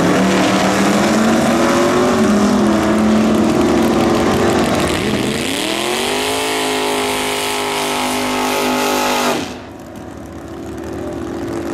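Two vintage gasser drag cars accelerating hard down the strip at wide-open throttle, their engines loud with a rising sweep in pitch about five seconds in. About nine seconds in the sound drops suddenly to a quieter, steady engine drone.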